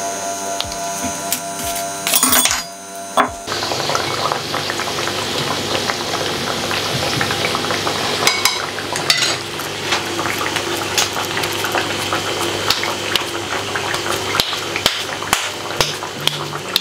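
Thattai vadas (rice-flour and chana dal fritters) sizzling and crackling in a pan of hot oil, with small clicks of a wooden stick turning them against the pan. The sizzle starts abruptly a few seconds in, after a steady hum.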